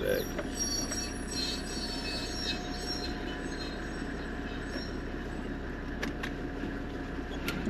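Brakes of a Toyota Land Cruiser HZJ78 squealing as it drives: a thin, steady, unbearable squeal over the running engine and road noise, with a couple of sharp clicks near the end.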